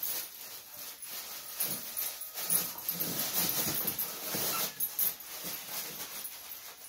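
A dog tearing open a wrapped present: wrapping paper crinkling and ripping in irregular bursts as she pulls it apart with her mouth and pins it with her feet.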